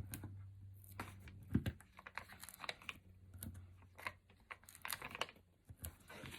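Paper handling: irregular small clicks, rustles and crinkles as foam adhesive dimensionals are peeled from their backing sheet and pressed onto a cardstock label, with one louder knock about a second and a half in. A low steady hum runs underneath.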